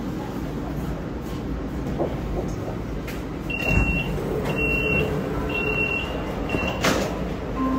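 Subway train running through a tunnel, a steady low rumble. Midway come four short high-pitched beeps about a second apart, and a sharp click near the end.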